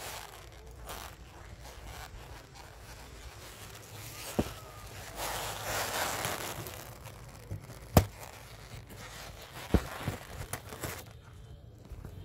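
Green plastic bags rustling and crinkling as they are handled close up, loudest in the middle, with a few sharp knocks, the loudest about eight seconds in.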